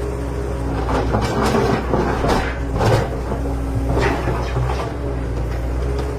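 Excavator's diesel engine running steadily, with a series of irregular metallic clanks and scrapes between about one and five seconds in.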